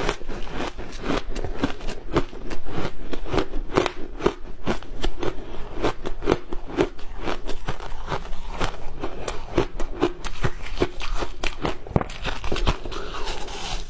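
Close-miked crunching and chewing of soft ice, a dense, unbroken run of crackling crunches.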